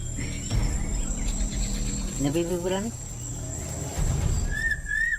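Rainforest insects trilling steadily on one high note, with a short pitched call about two seconds in and a brief warbling whistle near the end.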